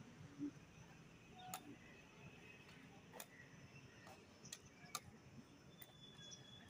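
Near silence with faint, sparse ticks about once every second and a half: a metal walking cane tapping the hard dirt with each slow step.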